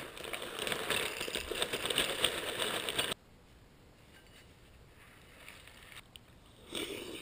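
Dry cereal poured from a plastic bag into a bowl, a dense rattling patter that cuts off suddenly about three seconds in. Then the faint sound of milk being poured from a plastic jug, and near the end a short burst of crunchy chewing.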